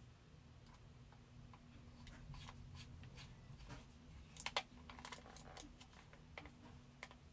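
Small screwdriver turning a screw into the plastic base of a computer mouse: faint, scattered clicks and scrapes, with a louder cluster of clicks about four and a half seconds in.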